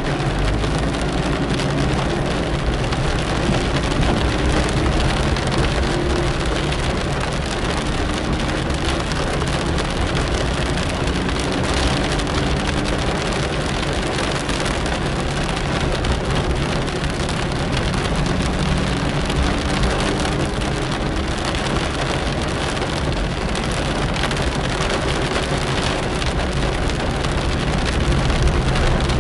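Steady rain falling on a car's windscreen and roof, heard from inside the cabin, with the car's engine and wet-road tyre noise running underneath, the engine's pitch rising and falling faintly.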